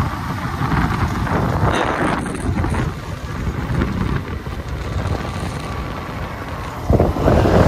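Wind buffeting the microphone on a Yamaha motorcycle riding along a road, with engine and road noise underneath. The buffeting grows louder and rougher near the end.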